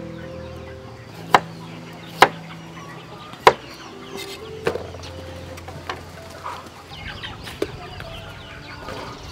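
Cleaver chopping carrots on a wooden chopping board: three sharp chops in the first few seconds, then a couple of lighter knocks, with chickens in the background.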